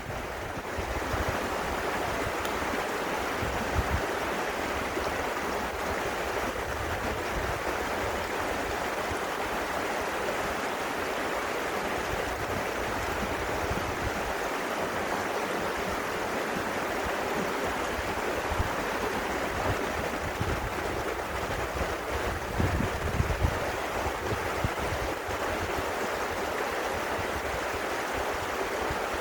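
Running water rushing steadily, with irregular low rumbles of wind on the microphone.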